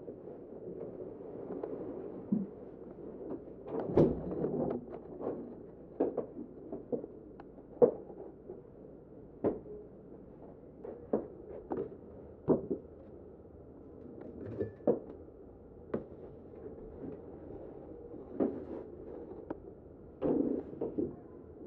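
Irregular household knocks and clunks, a dozen or more sharp ones about a second apart, over a steady low hum.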